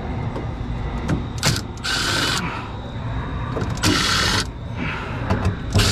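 Cordless impact driver zipping sheet-metal screws out of a furnace heat exchanger's support bracket, in two short bursts about two and four seconds in, with a few sharp clicks between and near the end.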